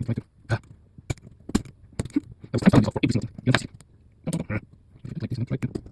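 Tool working a stubborn C-clip off the back of an EVVA ICS lock cylinder: irregular sharp metallic clicks and short scrapes of steel on steel.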